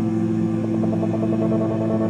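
Ambient electronic music: a steady low drone of sustained tones, joined about half a second in by a quick flickering pattern of higher tones.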